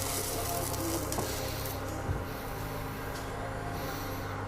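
Steady low hum of background machinery, with a couple of light knocks about one and two seconds in.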